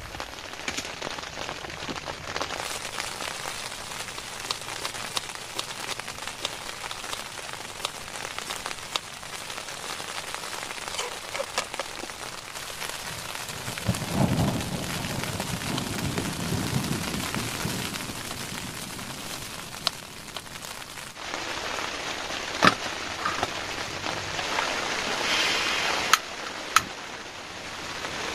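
Rain falling on a tent, a steady hiss thick with the taps of individual drops hitting the fabric, with a few louder single taps in the second half.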